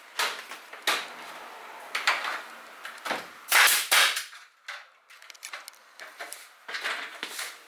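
An irregular series of sharp knocks and clatters mixed with short scraping noises, the loudest a half-second rasp about three and a half seconds in.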